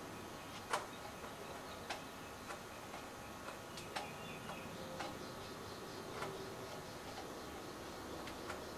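Faint, unevenly spaced clicks and light knocks, roughly one a second, from hands working the adjustment of a telescope's primary mirror, over a low steady hiss.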